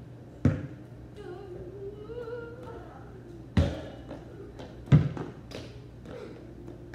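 A basketball thudding on a concrete driveway four times, spread out, the loudest about five seconds in. A child's voice is faint in between.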